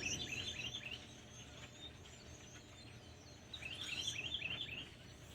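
A flock of small birds chirping, a rapid run of short high calls at the start and another about three and a half seconds in, over faint outdoor background noise.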